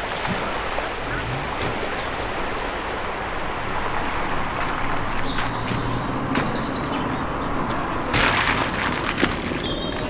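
A car driving slowly through a shallow ford, its tyres splashing and sloshing through running water, with a faint engine hum underneath and a few bird chirps. About eight seconds in the water noise turns suddenly louder and hissier.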